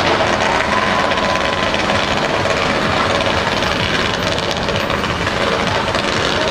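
Fireworks barrage: a dense, continuous crackle of many rapid small reports running together at a steady level, the sustained crackling typical of a finale.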